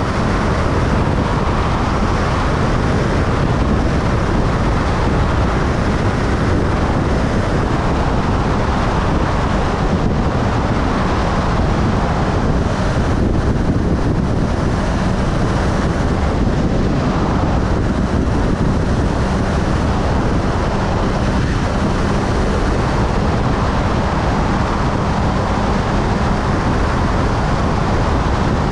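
Motorcycle cruising steadily at highway speed: a continuous wind rush on the microphone with the engine's drone underneath.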